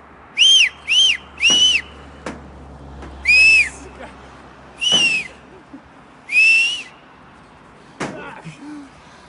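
Six short, loud whistles, each rising and then falling in pitch; three come in quick succession and three more are spaced out. Sharp knocks fall between them, with one near the end.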